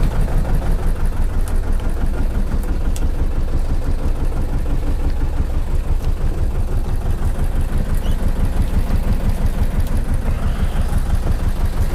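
Fishing boat's diesel engine running steadily at low revs.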